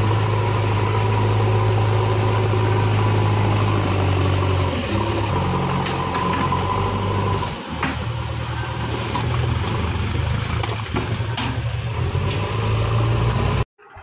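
JCB 3DX backhoe loader's diesel engine running steadily at working revs, its note shifting down and back up a few times, with a couple of sharp knocks partway through.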